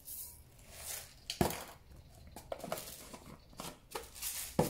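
Whole coriander seeds spooned from a jar into a glass chopper bowl: a light rattle and patter of falling seeds, broken by four or five sharp clicks and knocks, the loudest near the end.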